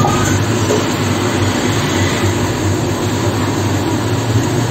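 A steady droning noise, even and unbroken, like a machine running in the room.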